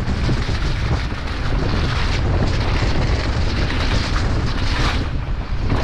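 Wind buffeting the camera microphone on a fast mountain bike descent, with the rush of tyres rolling over a wet, muddy trail.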